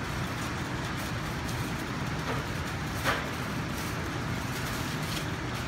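Steady background rumble and hiss of a commercial kitchen, with a few faint clicks and one small clink about three seconds in.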